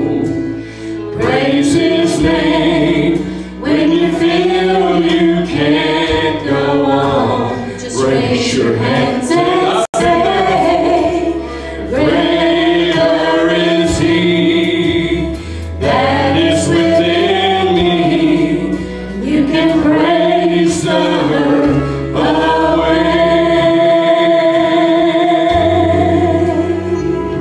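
A small worship team, a man leading with women's voices, singing a gospel praise song over instrumental accompaniment, in phrases with long held notes. The sound drops out for an instant about ten seconds in.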